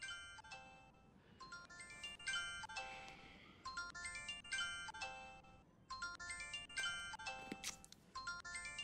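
Chiming electronic melody playing from a mobile phone, in quick runs of notes that repeat every second or two.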